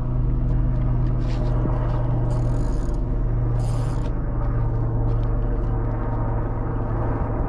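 A steady low engine hum runs throughout, with a few short whirring bursts as a spinning reel is cranked to bring in a hooked fish.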